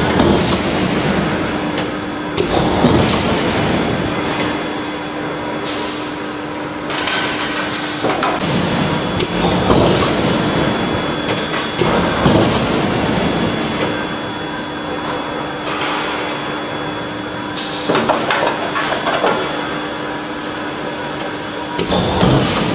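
Forging-plant machinery running with a steady hum, broken by irregular loud metal clanks and bangs every second or two.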